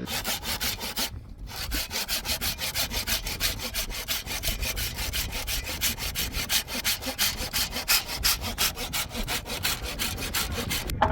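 Hand saw cutting through wood in quick, even rasping strokes, about five or six a second, with a short pause about a second in.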